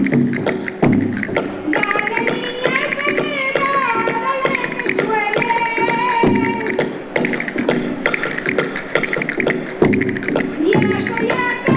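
Traditional folk music: a high, wavering melody line over fast, steady percussion taps, with lower voice-like tones beneath.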